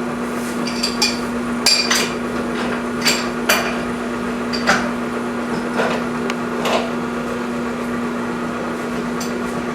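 Sharp metal clinks and taps, a dozen or so spread unevenly, as the steel vise on a core drilling rig is adjusted and shifted, over a steady hum.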